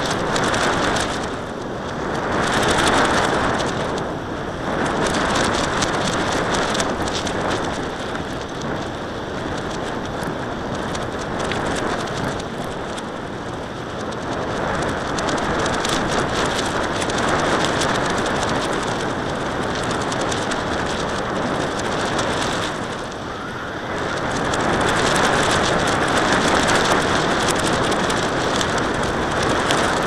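Wind rushing over the microphone of a camera carried aloft by a kite: a steady, crackling rush that swells and eases every few seconds.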